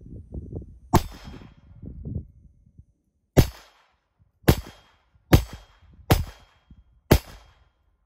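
Glock 44 .22 Long Rifle pistol firing CCI Stinger 32-grain rounds: six sharp, short shots at uneven gaps of about a second, the first about a second in.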